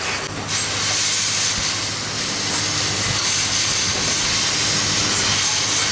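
Machinery running with a steady hiss and a low hum beneath it, setting in about half a second in.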